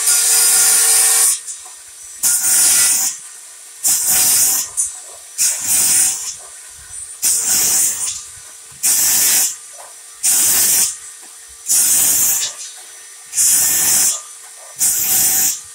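DeWalt 60V FlexVolt 7¼-inch cordless brushless circular saw running steadily while it slices through a wet 2x4 framing board about ten times. Each cut is a loud, hissing burst lasting under a second, coming about every one and a half seconds, with the blade's steady whine carrying on between cuts.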